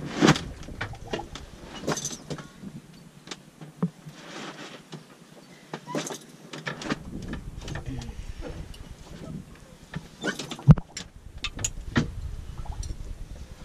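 Knocks, bumps and small clicks of people moving about a sailboat cockpit and eating from bowls, with one heavy thump about ten seconds in. A low rumble runs under it and drops out for a few seconds in the middle.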